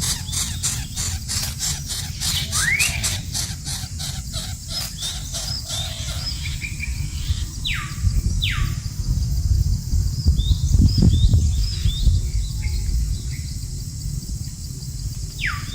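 Bird calls. A fast ticking chatter for the first several seconds, then two loud falling whistles about halfway through and two more at the end, with scattered short chirps. A low rumble swells briefly about two-thirds of the way in.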